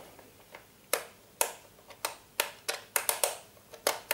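About ten sharp, irregular clicks and taps from the plastic housing of a Predom Zelmer type 165A hand mixer as it is handled and turned over, starting about a second in.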